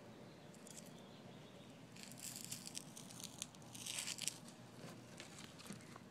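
Dry leaf litter and mulch rustling and crackling as something scrabbles through it, in two short bursts about two seconds in and again around four seconds in.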